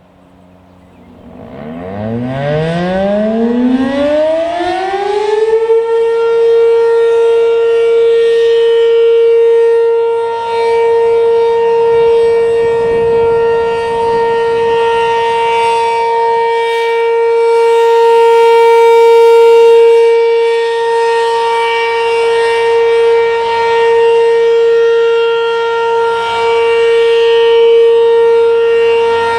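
ACA Penetrator P-15 electromechanical outdoor warning siren starting up. About a second and a half in it winds up, its pitch rising over about four seconds. It then holds one steady alert tone whose loudness swells and fades as the head rotates. The owner notes the drive chain slipping slightly, making the rotating head jerk a little.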